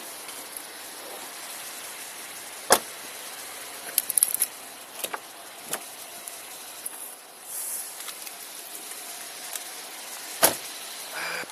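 Two sharp thuds of a police cruiser's doors being shut, one about three seconds in and another near the end, with light metallic jingling of keys about four seconds in, over a steady background hiss.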